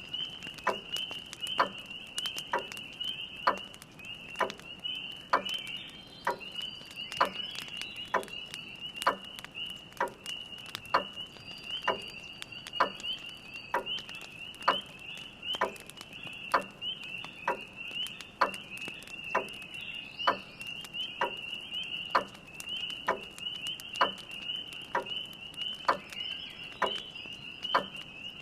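A dense chorus of spring peepers keeps up high, near-continuous peeping. A grandfather clock ticks evenly about once a second through it, over faint crackling from a fire.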